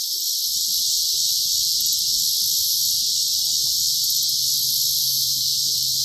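Loud, steady insect chorus, a high even buzz with no breaks, with a faint low rumble under it from about half a second in.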